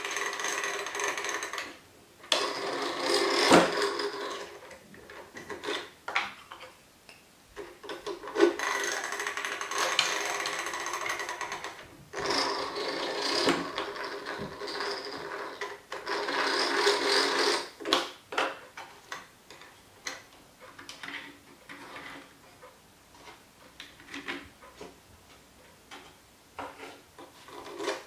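Winch of a 3D-printed plastic crane being cranked, its ratchet and pawl clicking rapidly in several bursts a few seconds long. In the second half only scattered clicks and knocks of the plastic parts being handled.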